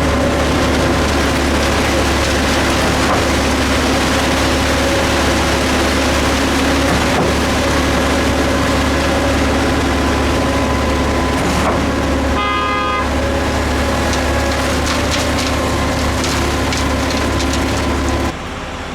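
Concrete mixer truck's diesel engine running steadily with a deep rumble, with one short horn toot about twelve seconds in. The sound drops suddenly near the end.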